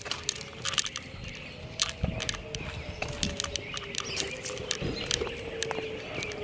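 Walking a dog on a leash over a concrete sidewalk and dry fallen leaves: irregular light clicks and rustling from steps, paws and leash, over a faint steady hum.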